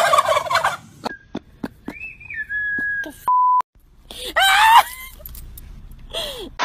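A turkey gobble trailing off at the start. Then come a thin held high-pitched whine, a short censor beep, and a loud high-pitched cry that rises sharply about four seconds in.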